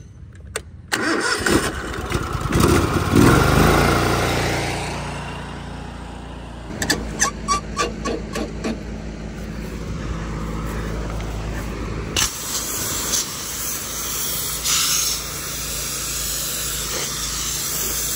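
Gas engine of a pressure washer starting a little under a second in, running up loudly and then settling into a steady run; a string of short pulses comes about seven to nine seconds in, and the engine note shifts at about twelve seconds in and holds steady.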